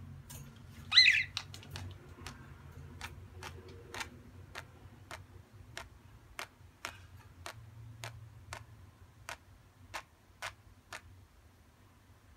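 A budgerigar gives one short, wavering chirp about a second in, then a run of sharp, even ticks about two a second.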